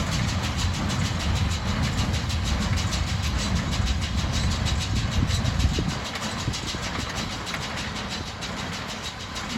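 Tractor engine running as it pulls a John Deere hay baler at work, a fast regular clatter from the baler over the engine's low rumble. The rumble eases about six seconds in.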